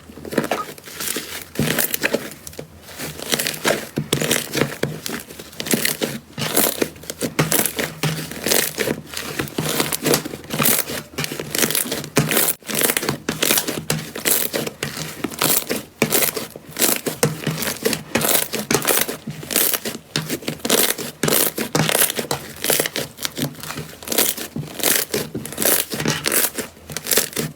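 Slime being squeezed and worked by hand, giving rapid, irregular crackling and popping with no steady rhythm.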